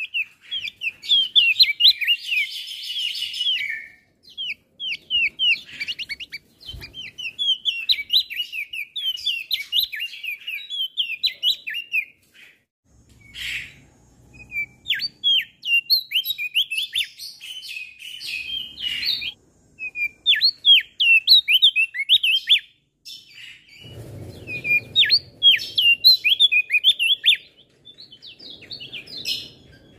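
Male opior jambul singing a rapid, chattering song of short, high, downward-sweeping chirps, in long runs broken by brief pauses.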